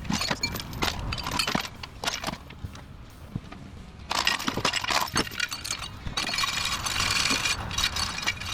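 Metal clinks and knocks of hand tools and parts being worked around an engine bay. About six seconds in comes a steady rasping rattle that lasts over a second.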